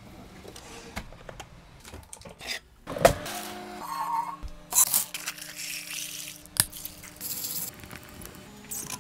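Household handling sounds. A water bottle is drawn from a drinks-fridge drawer, then comes a sharp knock about three seconds in, hissing bursts around five and seven seconds, and clicks as a tumbler's lid and handle are handled near the end. A steady low hum sits under it from the knock onward.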